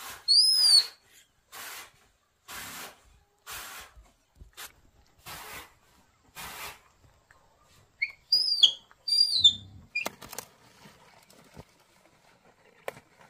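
Baby monkey giving high, whistle-like squeals that rise and fall in pitch: one near the start, then a quick run of four or five about eight seconds in. Soft swishing noises come about once a second in between.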